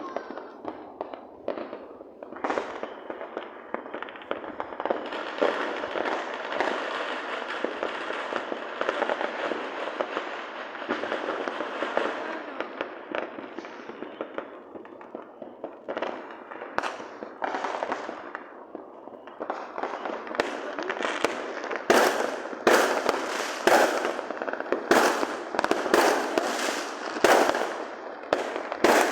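Fireworks going off: a dense, continuous crackle through the first half, then a quick run of sharp bangs, one or two a second, in the last third.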